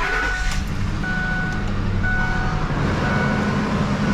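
2004 Ford Expedition's 4.6-litre V8 idling steadily just after starting, its first run after a fresh oil change. A dashboard warning chime beeps about once a second over the engine.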